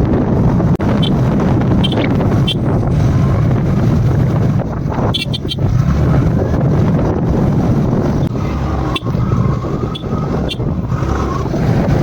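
Steady loud rush of a waterfall, with wind buffeting the microphone.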